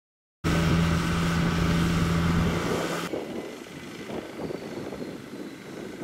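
A loud, steady engine drone with a low hum starts suddenly, then about three seconds in cuts to a quieter, uneven idle from the small engine of a rice harvester converted to carry rice sacks.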